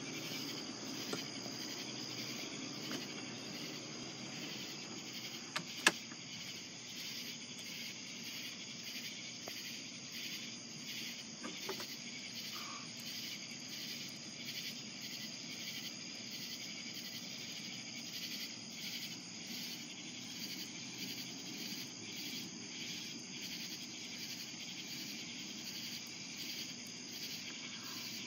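Steady outdoor chorus of crickets chirping, with one sharp click about six seconds in.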